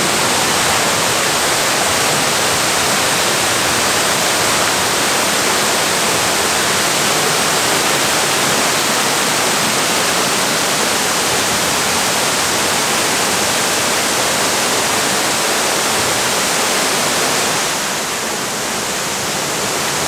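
Tukad Cepung waterfall pouring into a rock cave, together with the stream cascading below it: a loud, steady rush of falling water that eases slightly near the end.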